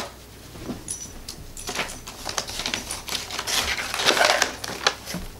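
Rustling of paper and cardboard with irregular clicks and taps as hands rummage through an open cardboard subscription box. A sharp click comes right at the start, and the rustling is busiest about four seconds in.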